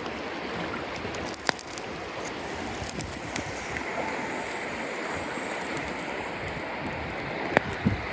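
Steady rush of a mountain stream, with a few sharp pops from a campfire burning damp firewood. The loudest pops come about a second and a half in and near the end.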